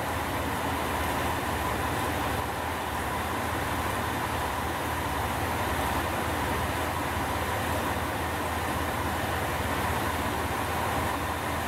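KiHa 47 diesel railcar standing at the platform with its engine idling steadily.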